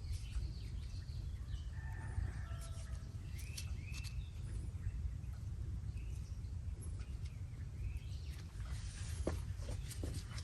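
Outdoor ambience: birds chirping now and then over a steady low rumble, with a few sharp clicks near the end.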